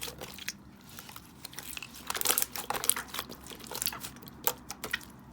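Slime being squeezed and worked by hand, giving irregular runs of small crackles and pops, busiest about halfway through.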